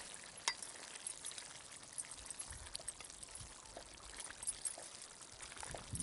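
Steel ladle stirring a pot of simmering chicken curry: the thick gravy slops and bubbles, with light clinks of the ladle against the steel pot, the sharpest about half a second in.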